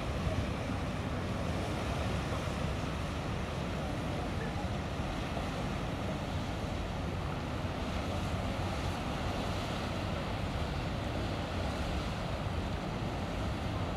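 Steady low rumble and water wash from a large motor yacht moving slowly past, mixed with wind on the microphone; the sound stays even throughout.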